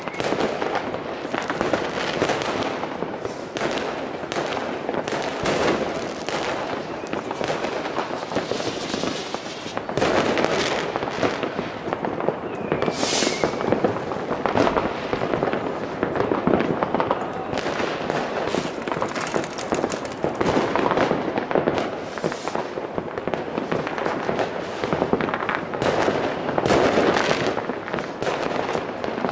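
Many fireworks going off at once: a continuous dense mix of bangs, pops and crackling from rockets and firecrackers. There is a brief shrill whistle about halfway through.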